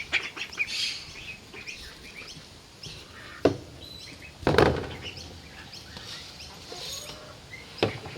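Young runner ducklings peeping, many short high calls scattered throughout. A few sharp knocks stand out above them, the loudest about three and a half and four and a half seconds in, and another near the end.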